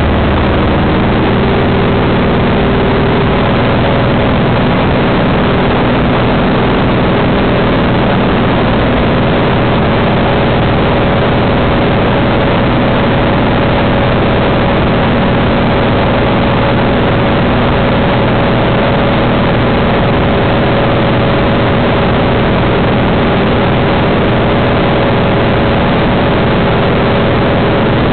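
Cessna's piston engine and propeller running steadily in cruise, heard from inside the cabin as a loud, even drone with a few steady tones under a thick rush of noise.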